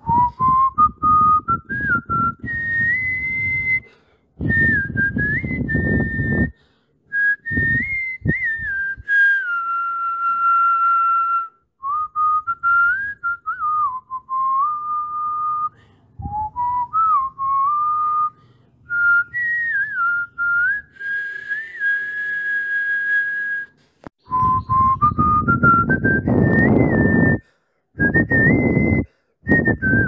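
A whistled tune: a single clear tone stepping up and down in short phrases, cutting off sharply between phrases, over seconds-long stretches of low rumbling noise.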